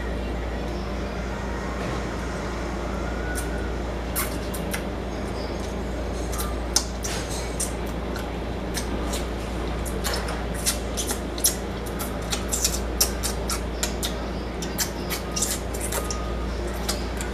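Close-up mouth sounds of a man eating fried chicken by hand: chewing, lip-smacking and finger-licking clicks, sparse at first and busier from about ten seconds in, over a steady low hum.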